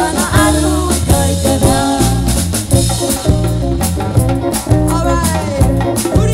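Live band playing: a woman singing lead over electric guitars and a drum kit keeping a steady beat.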